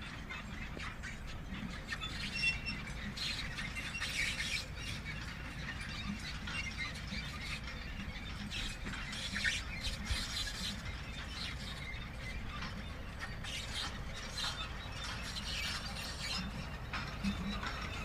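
Manure spreader running, its mechanism giving irregular high-pitched squeaks and clicks over a low steady rumble.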